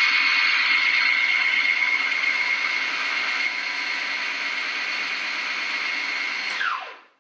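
Food processor motor running steadily with a whine while its blade purees salmon, egg whites and cream into a mousse. Near the end it is switched off and the whine falls in pitch as the blade spins down.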